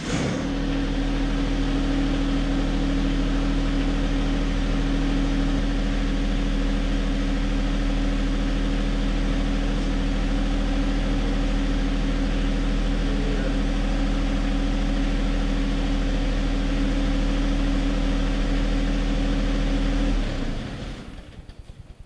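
John Deere 1025R compact tractor's three-cylinder diesel engine starting and running at a steady speed, then shutting off about twenty seconds in.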